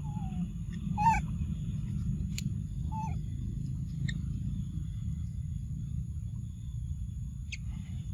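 A few short squeaky animal calls over a steady low rumble. There is a falling call at the very start, the loudest a little after a second in, and shorter, higher chirps around three, four and seven and a half seconds in.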